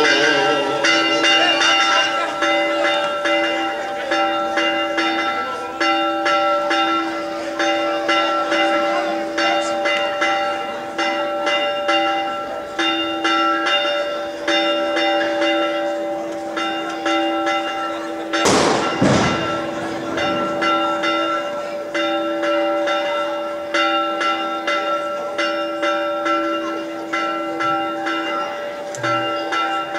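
Church bells rung in a rapid, continuous festive peal for the Greek Orthodox Easter Resurrection, the clangs overlapping so their tones hang on. A single loud bang cuts through about two-thirds of the way in.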